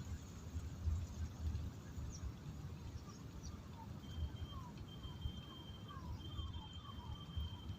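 Outdoor ambience: a low rumble underneath, with a bird calling a series of short falling notes, about two a second, from a little under halfway through. A thin steady high whine starts near the middle.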